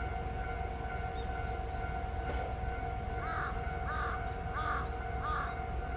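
A crow caws four times in the second half, the calls about two-thirds of a second apart. Under it runs a steady hum from a JR Hokkaido H100 (DECMO) diesel railcar idling.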